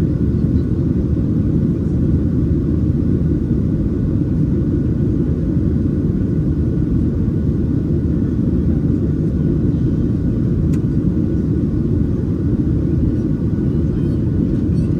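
Steady low cabin roar inside a Boeing 737-700 in flight, the CFM56-7B engines and airflow heard from a window seat. A faint click about ten and a half seconds in.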